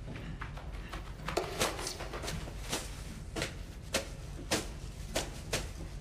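A series of sharp taps at a fairly even pace, nearly two a second, starting about a second and a half in, over a low steady hum.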